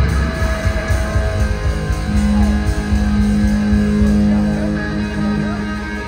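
Live electric guitar played through an amplifier, with a low note held for several seconds from about two seconds in.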